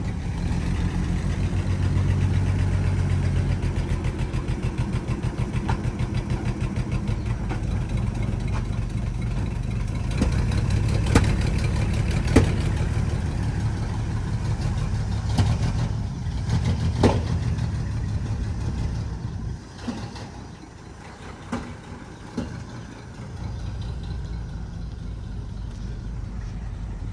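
An old car's engine running while driving. The engine is louder for the first two-thirds, with a few sharp clicks or clunks, and eases off near the end.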